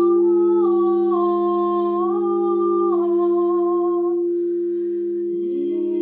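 A voice humming slow held notes that step up and down, over the steady drone of singing bowls. About five seconds in, a new hummed note slides upward.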